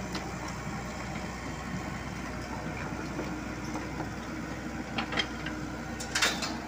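Komatsu PC78US mini excavator's diesel engine running steadily as it travels on its tracks through mud, with a few sharp clanks about five seconds in and again near the end.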